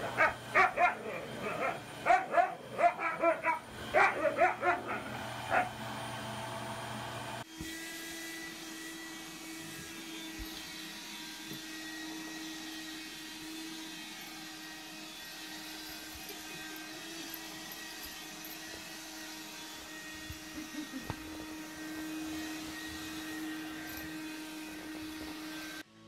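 A husky barks and yips in rapid, loud bursts over the steady hum of a running upright vacuum cleaner. About seven seconds in, the sound changes suddenly to a handheld vacuum cleaner's motor running with a steady hum that lasts to the end.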